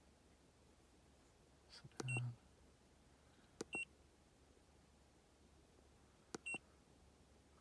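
Handheld MB II scan tool beeping briefly as its keys are pressed, three times: about two seconds in, near the middle, and near the end. Each short beep comes with a small click of the button.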